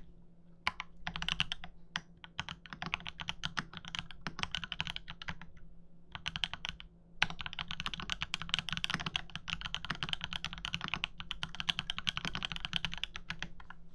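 Fast typing on a KMG TKL mechanical keyboard with TTC Tiger switches, an aluminium plate and XMI keycaps: dense runs of key clicks with short pauses. There is a brief break about seven seconds in, and the typing stops just before the end.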